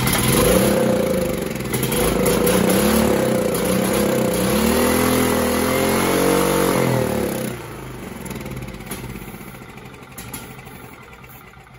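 Briggs & Stratton Vanguard 9 hp single-cylinder OHV generator engine running on starting fluid, its speed rising and falling unevenly for about seven seconds, then dying and winding down. It is fuel-starved: the in-line fuel filter was fitted backwards, so no gas reaches the carburetor.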